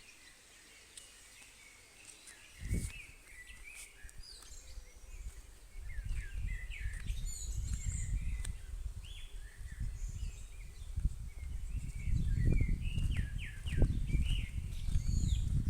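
Several small birds chirping and singing. From about six seconds in, a gusty low rumble of wind on the microphone builds up and grows stronger, and there is one dull thump near three seconds.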